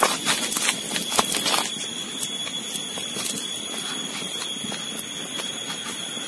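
A pestle grinding chilies, shallots and garlic in a mortar, giving a few scraping knocks in the first second and a half. Then comes a steady hiss with scattered faint ticks from a small wood fire crackling. A steady high-pitched whine runs underneath throughout.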